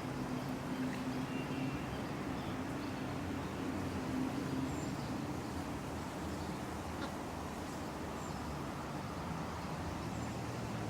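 City park ambience: a steady wash of distant traffic noise, with a low hum that stops about halfway through and a few faint, short bird chirps.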